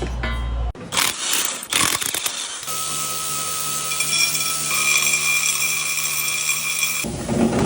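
Workshop tool sounds: a few short clatters, then a power tool whining steadily for about four seconds, the kind of work done to remove a Land Rover's transfer case.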